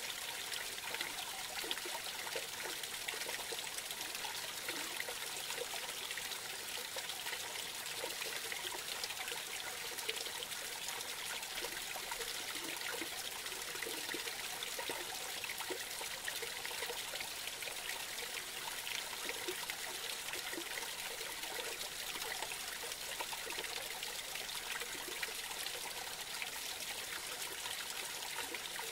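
Small creek trickling and splashing as a thin stream of water falls over a short ledge into a pool, a steady, even babble.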